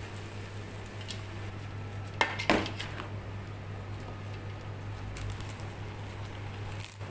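Kitchen tongs tossing pancit canton noodles and vegetables in a metal pan, clinking and scraping against it, with a few sharp clinks about two seconds in.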